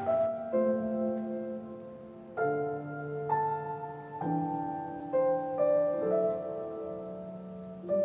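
Slow, soft background piano music: chords struck every second or so, each ringing out and fading.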